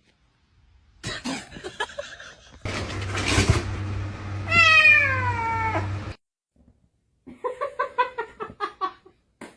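A cat meowing: one long meow about halfway through that falls in pitch, followed near the end by a quick run of short calls.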